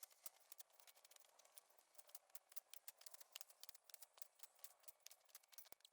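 Near silence, with faint, irregular ticks scattered throughout.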